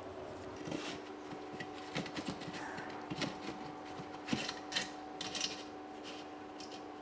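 Faint scattered rustles and light knocks of hands working a plastic wall sleeve into a freshly drilled 3.5-inch hole in the wall, over a faint steady hum.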